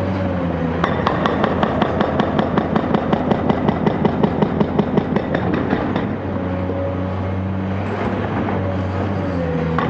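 Caterpillar 385C UHD demolition excavator running under load, with a gliding hydraulic whine over the diesel engine. From about one to six seconds in, a fast, even run of knocks, about six a second, comes through over the engine.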